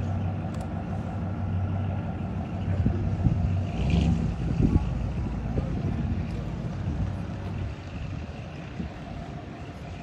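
Car engines running as cars drive slowly past, a steady low hum that swells about four seconds in and fades away near the end.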